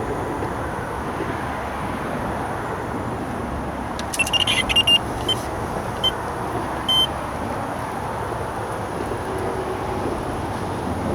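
Steady road-traffic noise from a nearby bridge, over which a carp fishing electronic bite alarm beeps in a quick run of short high beeps about four seconds in, then twice more singly about a second apart. The beeps signal movement on the fishing line.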